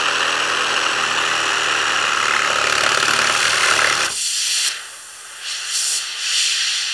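Milwaukee M18 cordless reciprocating saw running steadily as its blade cuts through a tyre's rubber sidewall. It stops abruptly about four seconds in, followed by several short bursts of hissing: air escaping through the cut from the tyre, which was never deflated.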